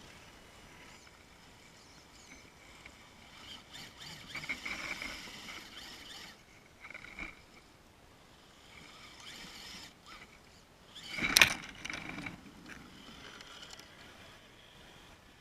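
Small electric RC model motor whining in short bursts of throttle, the loudest burst with a sharp peak about two-thirds of the way through.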